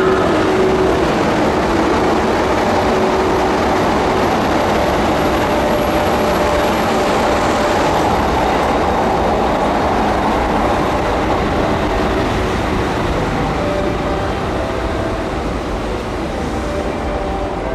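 A train running past on the rails, a steady rumble with faint held tones that eases off slightly toward the end.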